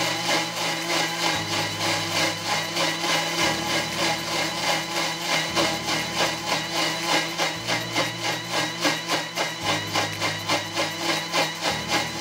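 Thermomix TM6 food processor blending at its top speed, 10, grinding the sauce ingredients in its steel jug. Background music with a steady beat and a moving bass line plays along with it.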